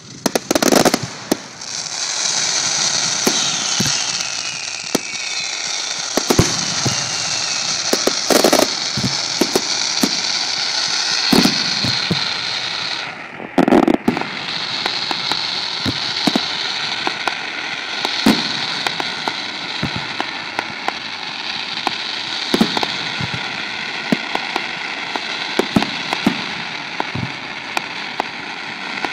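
Fireworks display: aerial shells bursting with sharp bangs every few seconds over a continuous crackling hiss from fountains and crackling stars. It dips briefly about halfway through, just before one of the loudest bangs.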